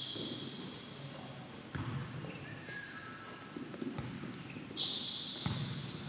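Futsal play on an indoor court: the ball is kicked and thuds against feet and floor a few times, and sneakers squeak in short high squeals, all echoing in a large hall.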